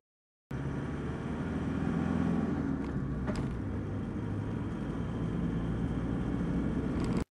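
Car driving, heard from inside the cabin: a steady low engine drone with road and tyre noise. It starts abruptly after a short silence and cuts off suddenly near the end, with a couple of faint ticks about three seconds in.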